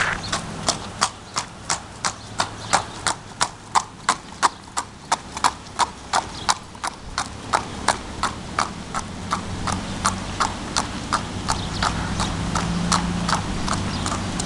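A horse's hooves clip-clopping in a steady, even rhythm, about three strikes a second, as she is led along.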